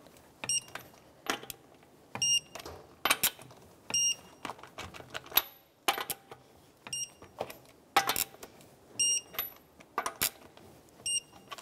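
Click-type torque wrench tightening wheel lug nuts to 130 ft-lb: irregular sharp metallic clicks, some with a short ring, as the wrench is worked round the nuts, with a few louder clicks where a nut reaches the set torque.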